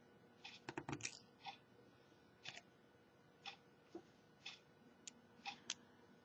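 Faint small clicks and ticks: one comes very regularly about once a second, with a few irregular clicks between, a quick cluster about a second in, as tiny screws are worked out of a smartphone with a small screwdriver.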